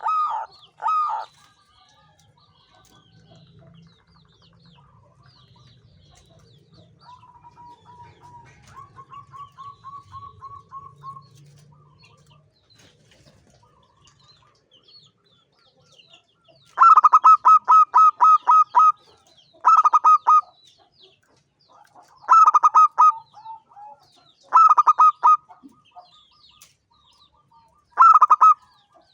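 Zebra dove (perkutut) singing in phrases of rapid, clipped cooing notes. There are brief loud phrases at the start, then a quiet spell of about fifteen seconds with a faint low hum and a few soft notes. After that comes one long rapid string of notes followed by four shorter phrases a few seconds apart.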